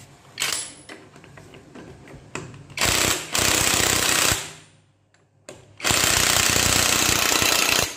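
Cordless impact wrench hammering the clutch centre nut tight, in two long bursts of about a second and a half and two seconds.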